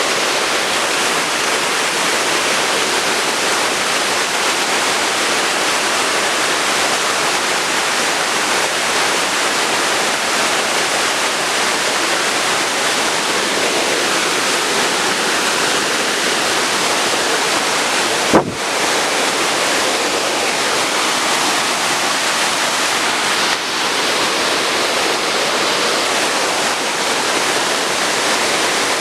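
Waterfall: steady, loud rush of falling water, with a single sharp click about two-thirds of the way through.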